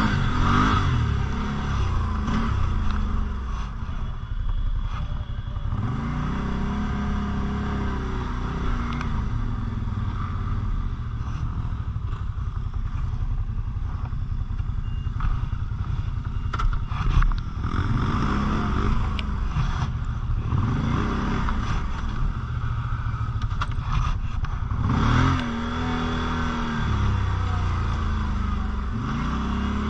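Quad (ATV) engine running off-road, revving up and easing off again and again, with clatter and scraping over rough ground; a sharp knock about 17 seconds in is the loudest moment.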